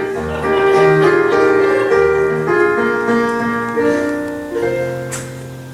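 Piano accompaniment playing the introduction to a show tune: sustained chords that change about every half second, growing softer toward the end.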